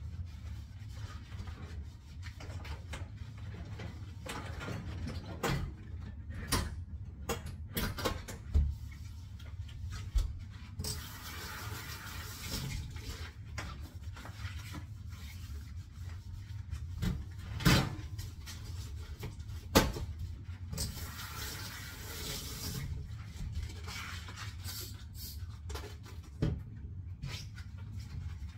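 Dishes being washed by hand at a sink: scattered clinks and knocks of dishware, with the tap running twice for a couple of seconds, over a steady low hum.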